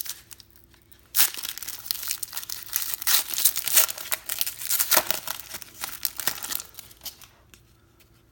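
Plastic trading-card pack wrapper being torn open and crinkled by hand. It starts suddenly about a second in and runs as a dense crackling until near the end.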